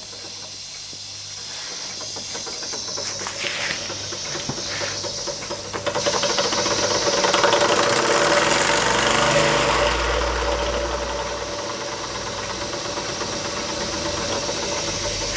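Jensen Model 70 model steam engine running under steam: a rapid light chuffing with steam hiss, growing clearly louder about six seconds in as its steam valve is worked.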